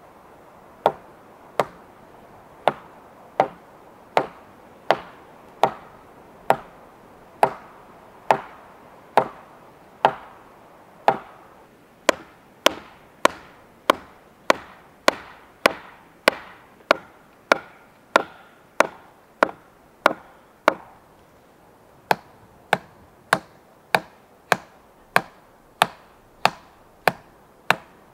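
A long, steady series of hard hand-tool blows on wood, a little more than one a second, with one short pause about two-thirds of the way in. Each blow has a short ringing note that climbs in pitch over the first two-thirds of the series.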